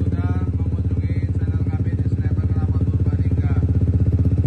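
Yamaha XMAX 250's single-cylinder four-stroke engine idling steadily through a Sniper aftermarket exhaust (full-stainless silencer with blue slip-on pipe), giving a deep bass note with an even, rapid pulse.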